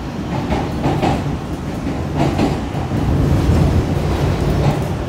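A new CRRC-built MBTA Orange Line subway car running, heard from inside the car: a steady low rumble, with a few clacks of the wheels over the rail in the first half, growing a little louder after the middle.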